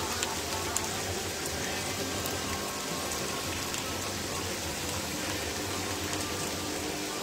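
Linguine simmering in tomato broth on the hob: a steady bubbling, sizzling hiss with a few small pops.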